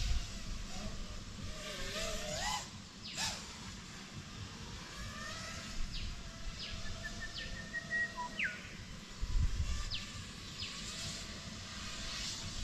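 FPV quadcopter (Five33 Switchback Pro on T-motor 2208 motors with 5-inch props) whining in the distance, its pitch climbing slowly and then dropping sharply a little past eight seconds in as it passes. Short bird chirps sound through it, and a low rumble of wind comes near nine seconds in.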